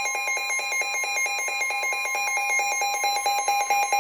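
NOAA Weather Radio warning alarm tone: a steady high tone with a fast pulsing beep over it, several pulses a second. It signals that a flood warning is being relayed.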